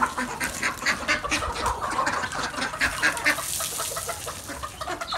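A flock of chickens and ducks feeding on scattered grain: many quick pecks on concrete mixed with clucking and quacking.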